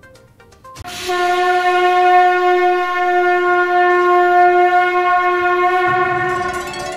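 A conch shell (shankha) blown in one long, steady note that starts about a second in and fades away near the end.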